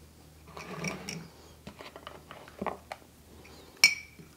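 Small clicks and scrapes of a spoon in a small ceramic ramekin of marinade, with one sharper clink near the end that rings briefly.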